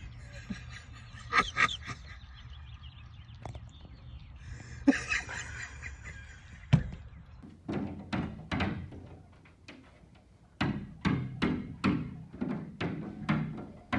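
A run of dull thunks, about two a second, through the second half, after a few scattered short sounds.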